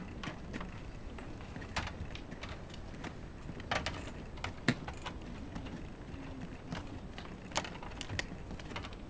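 A Shiba Inu's teeth and claws clicking and scraping on the metal wire floor grate of its crate at irregular moments, as it works at a cowhide chew that it can no longer get out.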